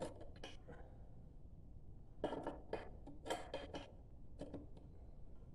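Light metallic clicks and clinks of transmission gears, shafts and shift forks being handled and seated in an XR400 engine's case half. The clicks are scattered, with two small flurries a couple of seconds and three and a half seconds in.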